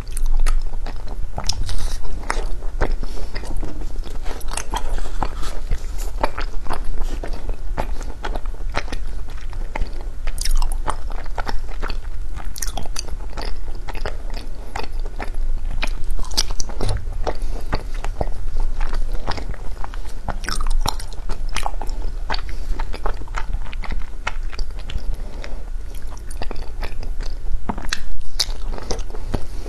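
Frozen matcha ice being bitten and chewed, a continuous run of crunches and sharp cracks.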